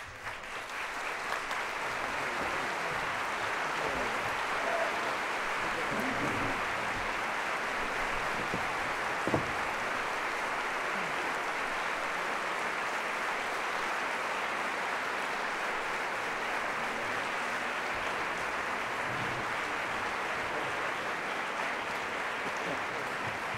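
Audience applauding, breaking out suddenly as the music ends and holding steady, with one sharp knock about nine seconds in.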